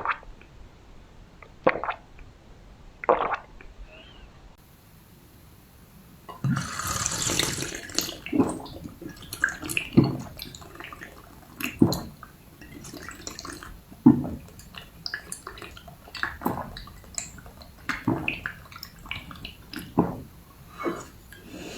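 A person drinking close to the microphone, with wet gulps and swallows. About six seconds in there is a short rush of liquid, then swallows follow every one to two seconds.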